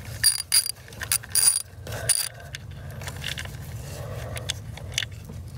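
Air ratchet run in three short bursts, each a hiss with a high whine, turning a socket on a seized diesel injector. Lighter tool clicks follow.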